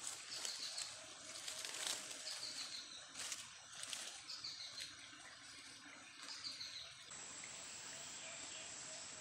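Dry leaf litter rustling and twigs crackling as hands work on the forest floor, with a few sharper snaps. A bird's short descending chirps repeat every second or two, and about seven seconds in a steady high insect whine sets in.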